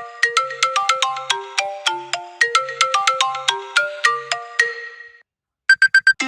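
A phone ringtone: a quick melody of bright, plucked-sounding electronic notes, about four or five a second, that fades out about five seconds in. After a brief silence, four short high beeps sound in quick succession near the end.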